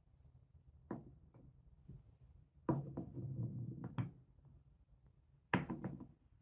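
Wooden Cuboro marble-run cubes knocking and rubbing together as they are pushed into place by hand: a single knock about a second in, a cluster of knocks with a scraping rub in the middle, and a few more knocks near the end.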